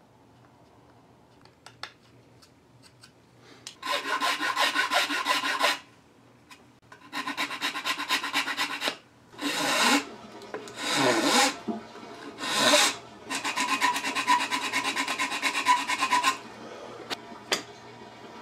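Flat hand file rasping at a rifle stock, in several bursts of quick scraping strokes. The longest burst lasts about three seconds near the end, and a few light clicks come before and after the filing.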